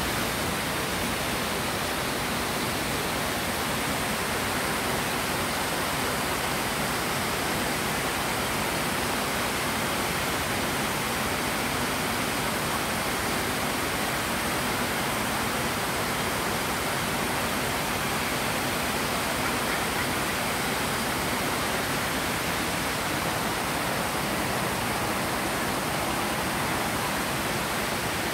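Shallow stream rushing over rocks and small rapids: a steady, even rush of water.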